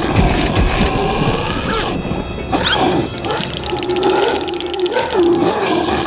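Background music under a dinosaur growl sound effect, a low, wavering growl.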